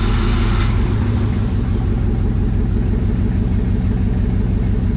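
LS V8 engine idling just after start-up, dropping from a higher fast idle to a steady low idle about a second in. It is running with cylinder 7 disconnected and still missing on cylinders 7 and 8; disconnecting the cylinder makes no difference to how it runs.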